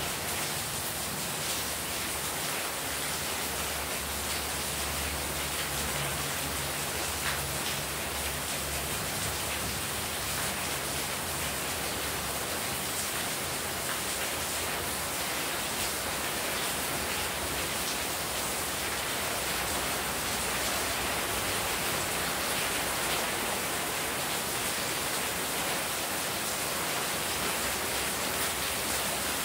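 Heavy rain falling steadily, with runoff pouring off a roof edge and splashing onto a wet courtyard floor.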